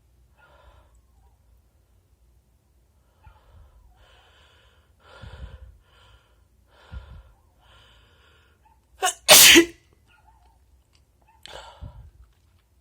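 A man's wet sneeze: several short breathy gasps building up over a few seconds, then one loud sneeze about nine seconds in, with a short breath after it.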